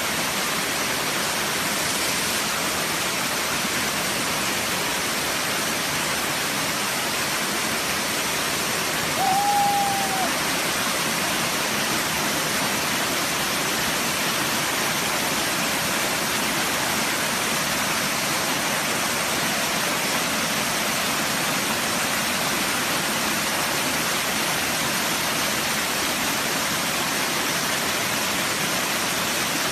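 Waterfall pouring in a steady, even rush. About nine seconds in, a single short whistled note sounds over it.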